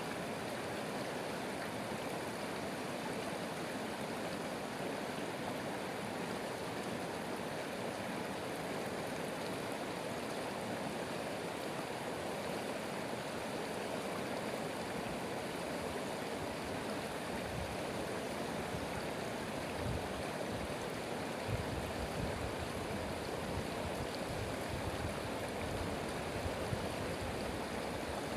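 Stream water running steadily, a continuous even rushing, with a few brief low thuds in the last third.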